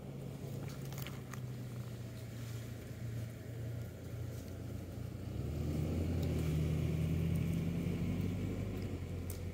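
Low, steady hum of a motor vehicle's engine, which grows louder about five seconds in and then slowly eases off, as of a vehicle passing nearby. A few faint clicks come near the start.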